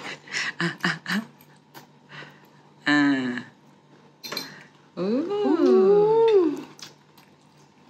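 A pet animal whining in short cries that rise and fall in pitch, two voices overlapping near the end, with light clicks of forks on plates in the first second.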